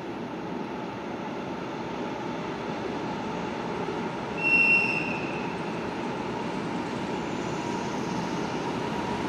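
A train running on the track: a steady rolling noise that grows slowly louder, with one short high-pitched squeal about four and a half seconds in.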